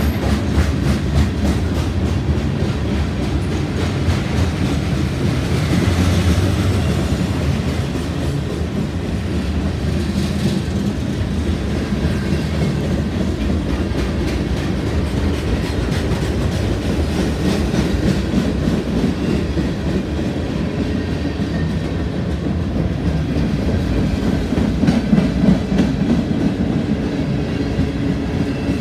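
CSX freight train's cars rolling past close by: a steady rumble of steel wheels on the rails with clickety-clack over the rail joints.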